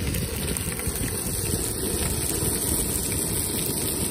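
Canister backpacking stove burning steadily under a frying pan, its burner roar mixed with the high hiss of trout fillet and potatoes sizzling in oil.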